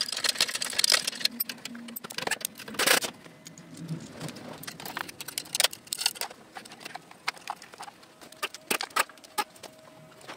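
Scattered metallic clinks, knocks and rattles of hand tools and car parts being handled during an engine and drivetrain removal, with a louder knock about three seconds in. A faint steady hum runs under the second half.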